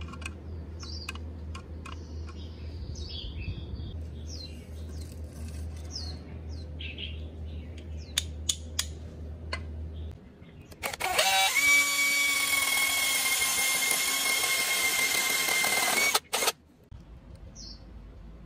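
Light clicks and knocks of bamboo pieces being handled. Then, about eleven seconds in, a power drill runs steadily for about five seconds, boring a hole through a green bamboo tube, and stops abruptly, with a short burst just after.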